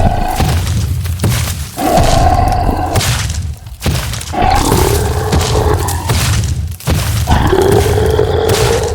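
Dinosaur roar sound effect: about three long, growling roars of two seconds or so each, beginning about two, four and a half and seven and a half seconds in, over a heavy low rumbling with thuds.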